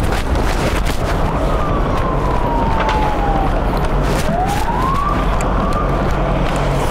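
Emergency-vehicle siren wailing, one slow downward sweep and then, about four seconds in, a sweep back up, over a steady din of street and engine noise.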